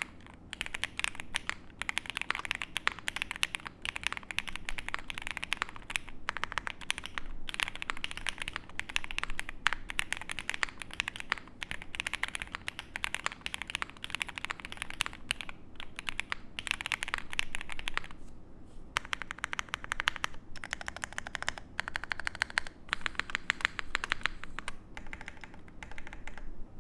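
Fast typing on a Mr. Suit custom mechanical keyboard with stock, unlubed Tangerine linear switches and Modo Light keycaps: rapid runs of keystroke clacks, broken by a few short pauses in the second half.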